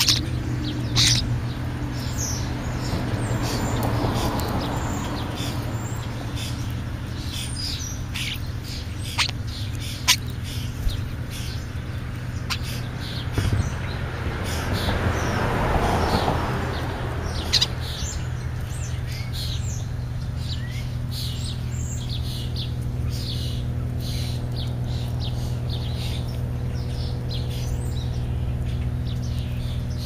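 Birds chirping at a ground feeding spot, with juvenile European starlings among them: many short, high chirps that thin out in the second half. Two swells of rushing noise, a few seconds in and about halfway, and a few sharp clicks, over a steady low hum.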